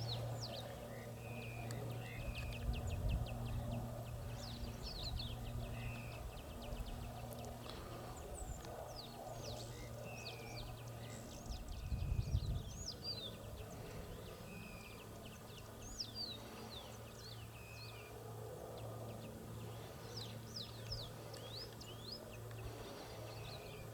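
Birds calling repeatedly in short, quick, downward-sweeping chirps and whistles, over a low steady hum. A brief low rumble comes about halfway through.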